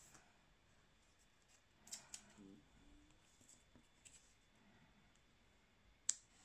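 Near silence, broken by a few faint taps and rustles of torn paper being pressed down onto a glued page, the sharpest one about six seconds in.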